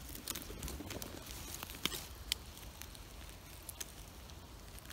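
Faint, scattered crackles and rustles of dry fallen leaves being disturbed in the leaf litter, over a low steady rumble.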